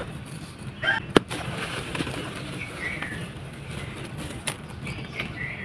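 Dry sand-cement chunks cracking as they are crumbled, two sharp snaps about a second in and again near the end, with a few short bird chirps behind.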